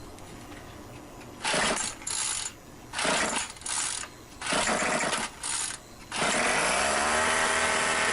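Craftsman gas string trimmer being pull-started with a fresh spark plug: several quick pulls of the recoil starter cord, then the engine catches about six seconds in and rises to a steady run.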